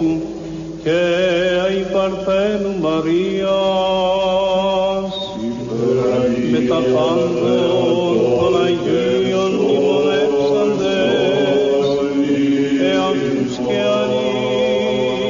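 Byzantine-style sacred chant: voices singing melismatic lines over a steady held drone. About five seconds in the drone gives way to a fuller, denser blend of voices.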